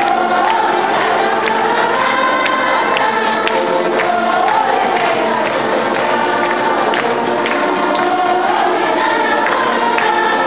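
A choir of many voices singing a sacred hymn together, the melody moving slowly in long sustained notes.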